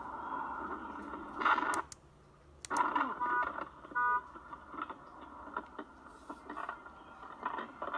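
Car collision heard through a dashcam's microphone: steady road noise inside the car, then a loud crash about one and a half seconds in. The sound briefly drops out, followed by a sharp knock and a few short beeping tones.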